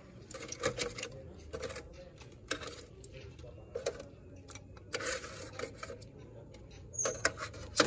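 A small plastic cup knocking and scraping against the inside of a metal pot as sauce is scooped out and poured, giving a string of irregular short clatters.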